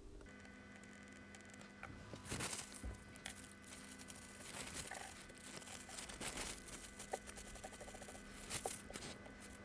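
Faint, irregular scratching and rubbing of a hand tool and fingers on the iPod Touch's circuit board and flex cable, cleaning off leftover tape glue, over a steady hum with a thin higher whine that comes on just after the start.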